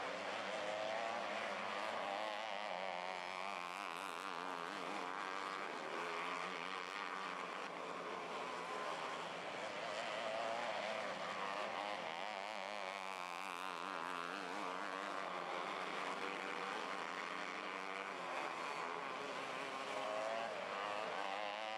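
Several 250cc micro sprint car engines running together, their pitch wavering up and down as the cars circle the track.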